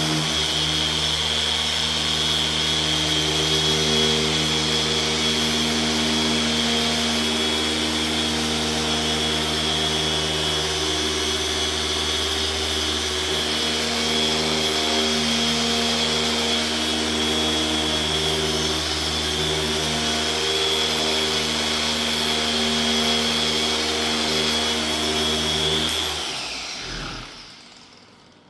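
Electric car polisher running steadily at high speed while buffing a headlight lens with heavy cut compound, a motor hum with a high whine. Near the end it is switched off and spins down, its pitch falling away.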